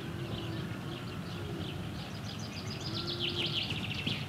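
House sparrows chirping, with scattered single chirps and then a quick run of chirps in the second half, over a steady low background rumble.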